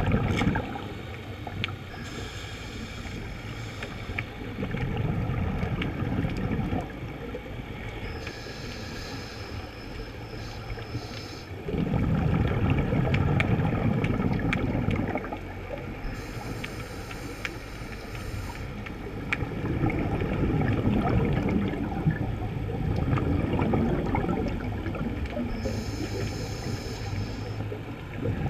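Muffled underwater rumble and bubbling from a scuba dive, swelling and fading every few seconds. Short hissing bursts of exhaled bubbles come four times.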